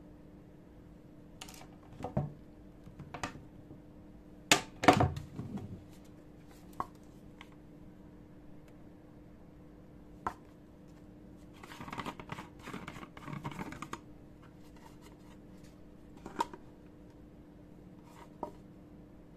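Hard plastic parts of an electric paint sprayer handled on a table: scattered clicks and knocks, the loudest about five seconds in, and a stretch of scraping and rustling near the middle. A faint steady hum runs underneath.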